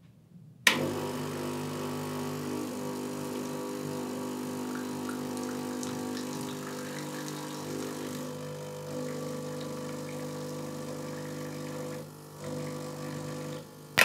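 Gaggia Classic Evo espresso machine's vibratory pump running with a steady hum, pushing hot water from the boiler out through the wand into a cup. It starts with a click about a second in, dips briefly near the end and then stops.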